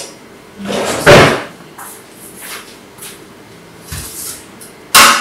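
Kitchen clatter from dishes and utensils being handled on a counter: a loud clunk about a second in, a few light taps, and a sharp knock near the end.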